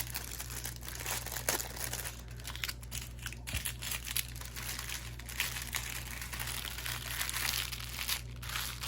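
Plastic packaging crinkling and rustling as it is handled, in irregular bursts of crackles.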